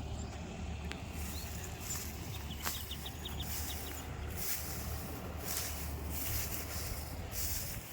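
A low steady engine hum, with insects buzzing in repeated pulses and a short quick run of bird chirps about three seconds in.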